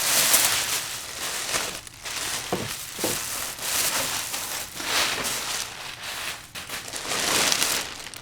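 Packaging crinkling and rustling in repeated swells as it is handled and pulled aside during unboxing.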